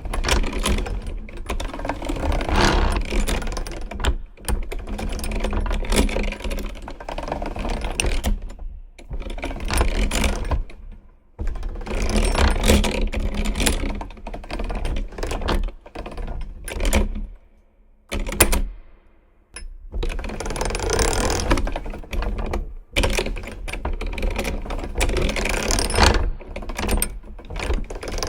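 Old mechanical gears and mechanisms worked by hand, clicking and rattling in spells with short pauses between them.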